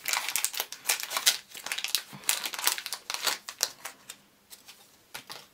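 Crinkling and crackling of a mystery-pin blind bag being torn and opened by hand, dense for about four seconds, then a few softer rustles near the end.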